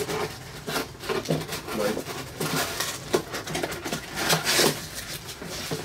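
Gloved hands rummaging in a cardboard parts box: cardboard flaps and plastic-bagged metal fittings rustling and clinking in irregular bursts, loudest a little past the middle.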